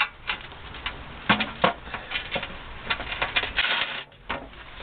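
Gloved hands working a coolant hose off the rear heater matrix unit's pipe: irregular clicks, scrapes and rubbing as the hose is twisted and pulled.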